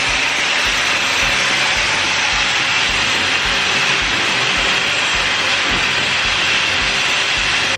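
Dyson Supersonic hair dryer blowing steadily, a loud even rush of air, until it cuts off abruptly at the end.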